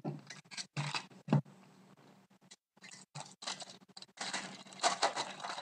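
Foil trading-card pack wrapper crinkling and being pulled open by hand, in irregular bursts of rustling, with a couple of soft knocks about a second in.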